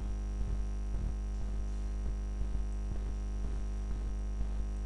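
Steady low electrical mains hum at 50 Hz with its overtones, picked up on the recording, with a thin high whine and faint irregular ticks a few times a second.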